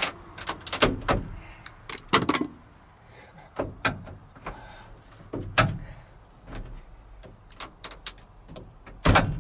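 Screwdriver prying and scraping at a hardened, crumbling window-run seal in a 1985 Ford F-150's door-glass channel: irregular sharp clicks and scrapes as the brittle seal cracks and breaks out of the metal track.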